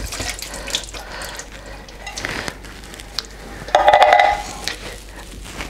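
Kitchen handling sounds from canned mandarin segments draining in a sieve: juice dripping, small clicks and knocks, and one brief louder sound about four seconds in.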